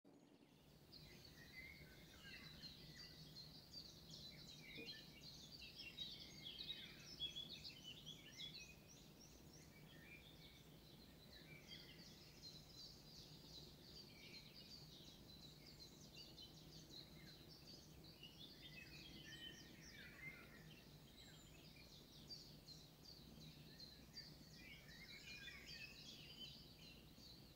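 Faint birdsong: many small birds chirping and trilling in quick overlapping phrases, busiest in the first few seconds and again near the end, over a low steady hum.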